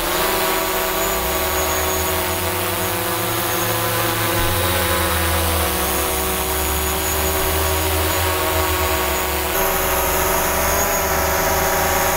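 DJI Mavic Pro quadcopter hovering on LED low-noise propellers: a steady buzzing whine of several tones at once, wavering slightly in pitch.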